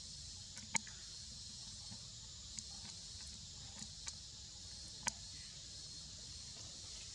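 A steady, high-pitched insect chorus of the forest, with a few sharp clicks: a loud one about a second in and another about five seconds in.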